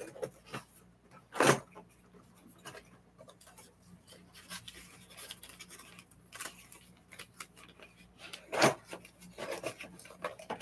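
Packaging and small items being handled: scattered rustling, rubbing and clicks, with two louder knocks, about one and a half seconds in and near the end.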